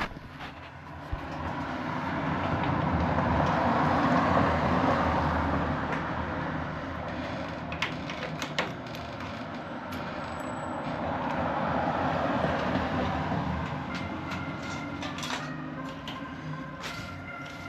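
Vehicles passing by one after another, each rising and then fading over several seconds, with a few light clicks and knocks of handled parts.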